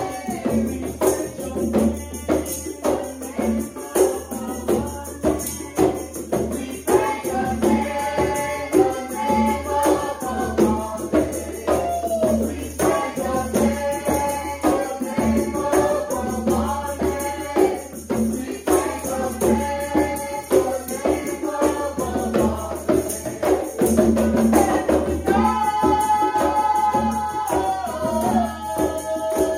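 Worship music: a tambourine jingling in a steady rhythm over hand drums, with voices singing held notes.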